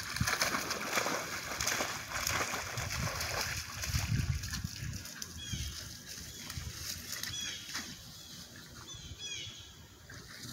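Splashing and rustling as a German shepherd puppy moves through mud and shallow water at a lake's edge, loudest in the first half. A bird chirps briefly three or four times in the second half.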